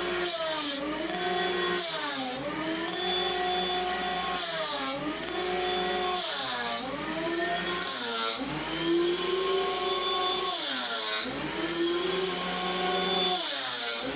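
Planer running while boards of cherry are fed through it. The motor's whine sags in pitch and recovers several times, and each sag comes with a hiss of cutting as the blades take a pass off the wood.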